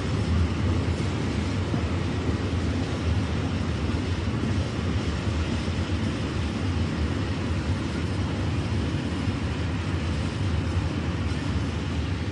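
Freight train of open wagons rolling past on the rails, a steady rumble of wheels and wagons.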